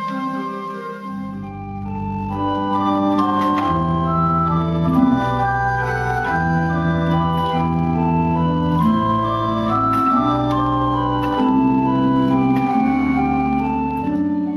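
Pipe organ playing sustained notes in several voices at once over a moving bass line, which comes in about a second in.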